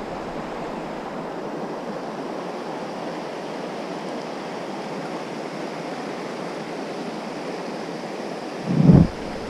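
Steady rush of a fast-flowing river running high after heavy rain, the water churning over a rocky bed. A brief low thump comes near the end.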